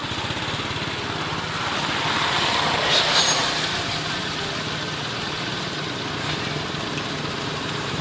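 A motor vehicle engine running steadily with an even low hum, growing louder for a moment about three seconds in.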